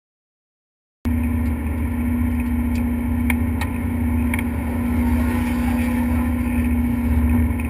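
Race car engine running at a steady speed, heard from inside the stripped, roll-caged cabin, with a few light clicks and rattles. It cuts in abruptly about a second in.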